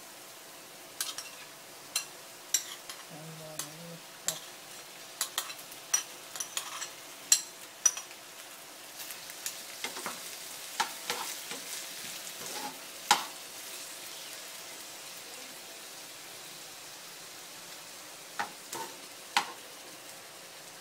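Sliced mushrooms and onions frying in butter in a pan, with a soft, steady sizzle. A metal spatula stirs them, giving many sharp clicks and scrapes against the pan.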